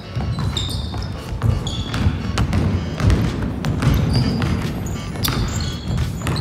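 A basketball being dribbled on a hardwood gym floor, with players' running footsteps and short sneaker squeaks, over voices in the hall.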